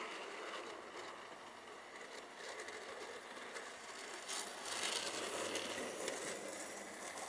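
Hornby GWR Dean Single OO-gauge model locomotive running on the track, its motor and wheels giving a steady whirring rattle. The sound grows louder as it passes close by about five seconds in. It has a squeaky note that the owner traces to the model needing lubrication.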